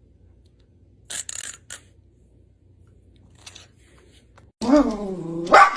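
A few short scuffs, then a dog's drawn-out whine lasting about a second near the end, falling and then sharply rising in pitch.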